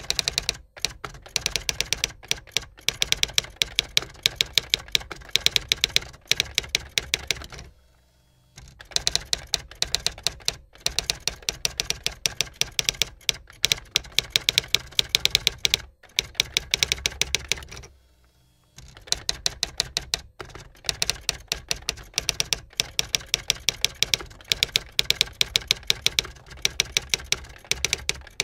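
Typewriter keys being struck in fast, steady runs of sharp clacks, pausing for about a second twice, roughly a third and two-thirds of the way through.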